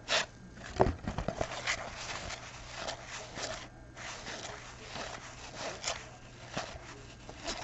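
Stack of 1991 Donruss cardboard baseball cards being flipped through by hand, the cards sliding and snapping against each other in a run of irregular clicks and rustles, with one louder thump about a second in.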